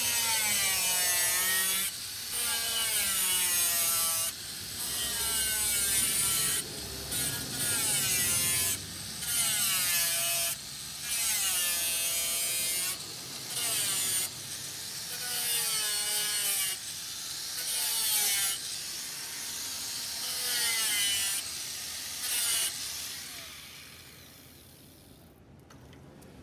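Electric angle grinder cutting rusted sheet steel along a car's wheel arch in about a dozen short passes, its motor whine sagging in pitch as the disc bites and recovering between passes. It stops shortly before the end.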